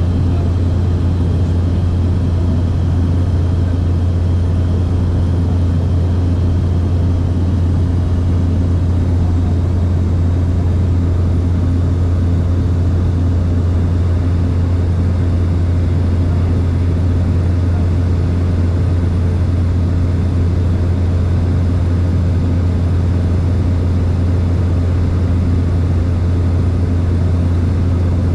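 Steady low drone of a small sightseeing plane's engine and propeller heard inside the cabin in level cruise, unchanging throughout.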